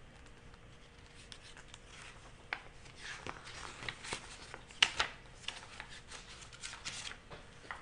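Pages of a crochet pattern book being turned by hand: a run of paper rustles and flicks, starting about a second in and loudest about five seconds in.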